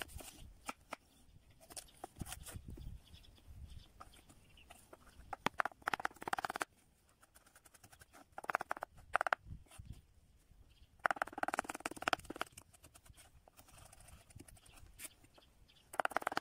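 Chef's knife cutting a fresh carrot on a wooden cutting board: crisp crunches through the carrot and quick taps of the blade on the board, in runs of rapid strokes with short pauses between.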